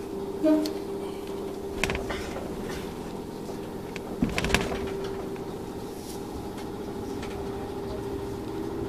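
Cab of a Chichibu Railway 1000 series electric train pulling away from a station: a steady hum with a short buzzer about half a second in, then clunks and clicks around two seconds and again around four and a half seconds in as the train starts to move.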